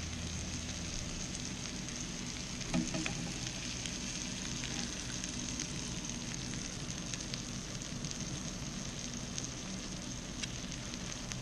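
Blackened mahi mahi filets frying in oil on an electric griddle: a steady sizzle with scattered small pops and crackles. A short knock about three seconds in.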